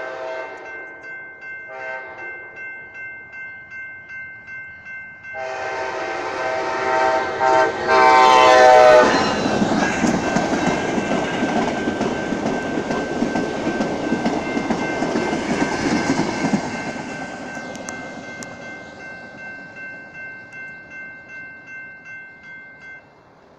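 Grade-crossing warning bell ringing about twice a second while an Amtrak Talgo passenger train's horn sounds a short blast, then a long blast that drops in pitch as the locomotive passes. The train then rolls by with a loud rumble and clickety-clack of wheels on rail joints, fading as it draws away. The bell stops near the end.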